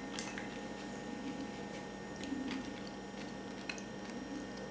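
A table knife scraping butter from a dish and spreading it on a crusty bread slice: faint scattered scrapes and small clicks.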